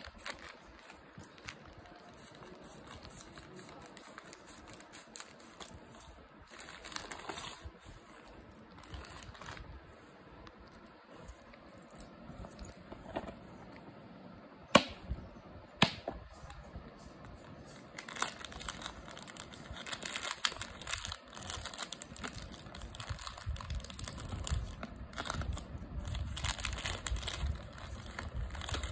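Plastic packaging rustling and crinkling as a parcel is unpacked by hand. About 15 s in there are two sharp clicks, a second apart, as the snap latches of a clear plastic box are opened, followed by denser crinkling of a plastic bag as gold-plated jewelry is drawn out of it.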